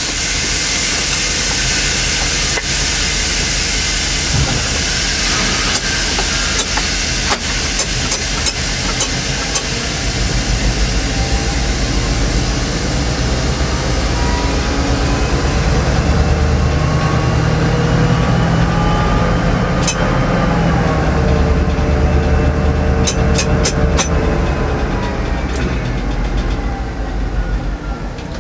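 NOHAB MZ diesel-electric locomotive's engine, heard in the cab, running hard. Its pitch climbs steadily as the handwheel throttle is opened, peaks about twenty seconds in, then eases off. A hiss of air comes at the start, and a few sharp clicks near the end.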